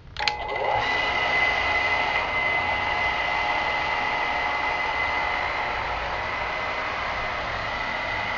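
A circuit breaker clicks on and an electric water pump starts right after. It runs steadily with a high whine over a hiss, pumping water up to a reservoir.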